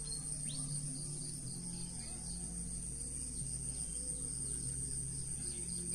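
Dawn insect chorus, crickets or similar insects trilling in one steady high-pitched drone, with a faint low hum beneath it.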